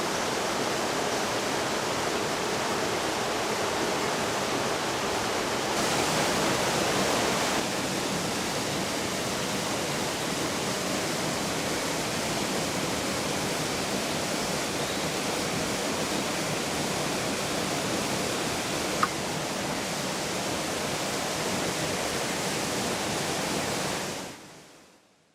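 Gorge stream rushing steadily over rocks, a little louder for a moment about six seconds in, fading out near the end.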